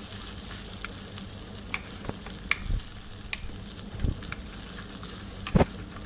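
Beaten egg and boiled potatoes frying in oil in a karahi, with a steady sizzle, while a wooden spatula stirs them. Scattered scrapes and knocks of the spatula against the pan, the loudest a little over five seconds in.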